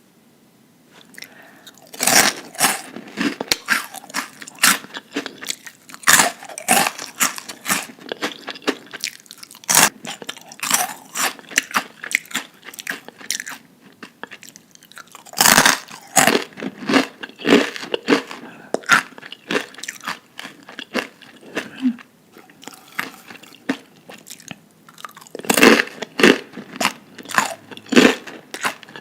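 A person biting into and chewing crunchy food close to the microphone: repeated crisp crunches, with louder clusters of bites about every few seconds.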